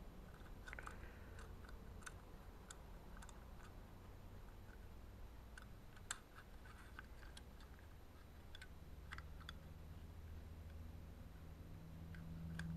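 Faint, scattered metal clicks and light taps of a hand tool working the float clip out of a Rochester Quadrajet carburetor's float bowl, with one sharper click about six seconds in. A low steady hum runs underneath and grows louder near the end.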